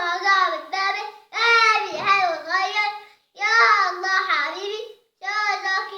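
A young child singing in four short phrases, with brief pauses between them, in a high voice.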